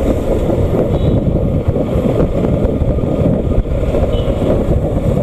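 Wind buffeting the microphone of a rider moving at speed on a Bajaj Pulsar NS200 motorcycle, a steady low gusty rumble with the bike's engine running underneath.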